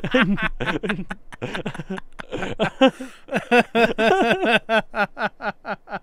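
Men laughing hard at a joke, in quick rhythmic ha-ha pulses that turn higher-pitched and drawn out around the middle.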